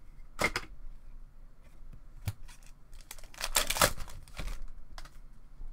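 Foil wrapper of a hockey card pack torn open and crinkled by hand: a short rip about half a second in, then the loudest stretch of crinkling and tearing from about three to four seconds in, with a couple of light clicks between.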